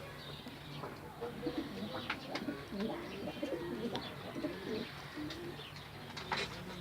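Pigeons cooing, several low coos overlapping from about a second in until about five seconds in, with a few sharp short chirps.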